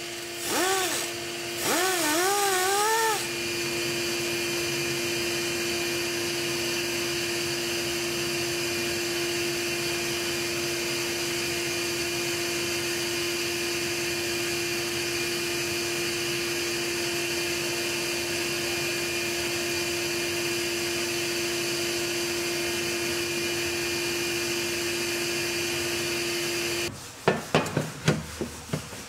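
Small high-speed rotary grinding tool running. Its pitch dips and recovers several times in the first few seconds as it bites into the work, then it holds a steady whine and cuts off near the end.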